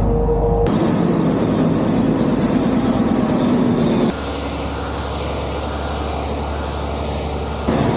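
Heavy farm machinery running: steady engine noise from large harvesting machines. It changes abruptly twice, about a second in and again about halfway, as one machine's sound gives way to another's.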